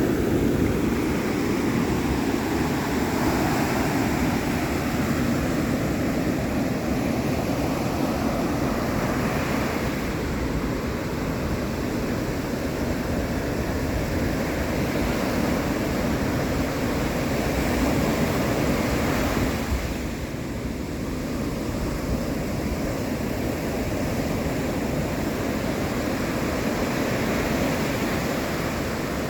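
Ocean waves breaking and washing on the shore in a continuous surf rush that swells and eases slowly, dropping back briefly about twenty seconds in.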